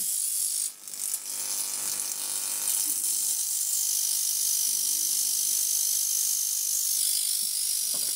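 High-voltage arc, fed by a neon sign transformer through saltwater bottle capacitors, sparking continuously onto a smart meter communications circuit board: a steady, rapid crackling buzz over a low hum. It breaks off briefly a little under a second in.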